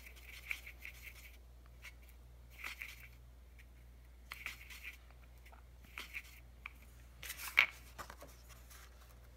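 Watercolor brush scrubbing and swirling in the wells of a plastic palette, mixing paint: a handful of short, scratchy strokes with pauses between, the loudest about seven and a half seconds in.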